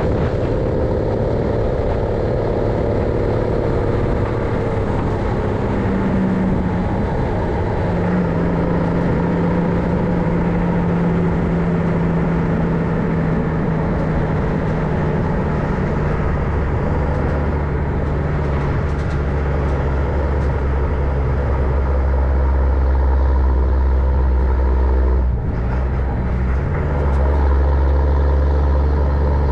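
MAN LE280B 4x4 truck's diesel engine running under way, its pitch shifting several times, deepening to a heavier low rumble about halfway through, with a brief drop about 25 seconds in.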